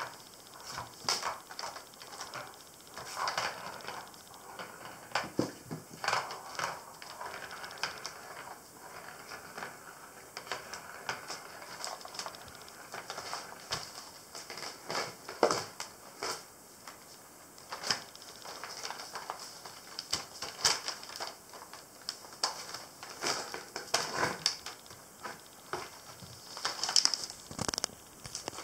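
Kittens playing on a paper bag: irregular rustling and crinkling of the paper, with scattered light clicks and patter of small paws and toys on a wooden floor.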